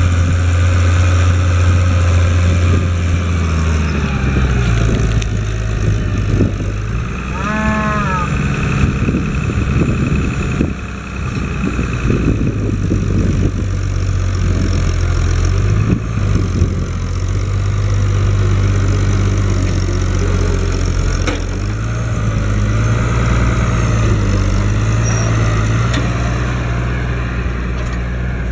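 Case IH 1056 XL's six-cylinder diesel engine working under load, pulling a four-furrow reversible plough through the soil. The engine note drops about five seconds in and rises again a little after twenty seconds.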